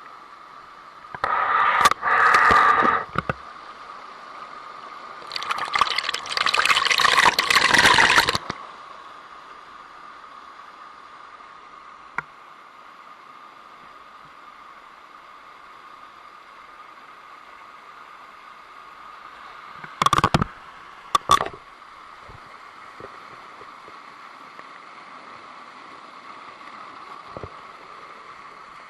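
Steady rush of water from a waterfall or stream. Over it come two loud rough bursts of noise lasting a few seconds each in the first eight seconds, and two short ones about twenty seconds in.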